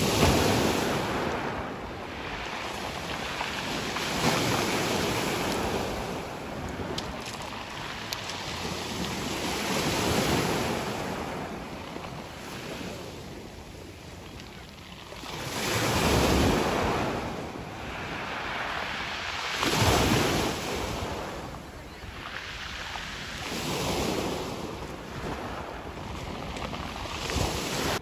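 Small sea waves washing onto the shore, the surf rising and falling every few seconds, with wind buffeting the microphone.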